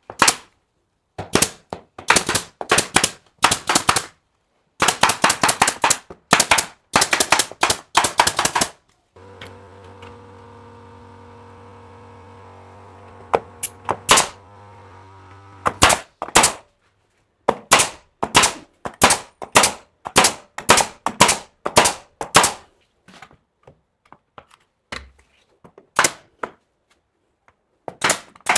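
Pneumatic nail gun firing in rapid strings of shots, several nails a second, with pauses between the strings. Midway the firing stops for several seconds and a quieter steady mechanical hum is heard.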